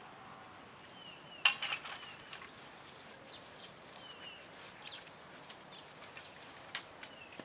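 A few sharp knocks and clacks of bamboo poles being handled, the loudest about a second and a half in, over a steady hiss. Short falling bird chirps repeat a few times.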